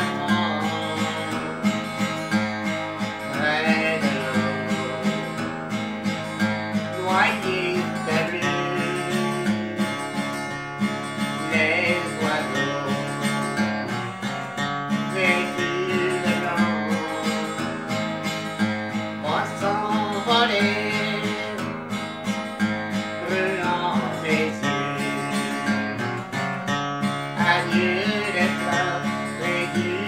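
Acoustic guitar being strummed and picked, playing a song in a steady rhythm.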